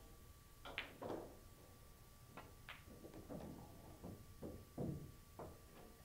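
Faint pool-ball clicks from a shot: a sharp click about three-quarters of a second in, a second right after, then a few more clicks and softer knocks as the balls strike each other and the cushions.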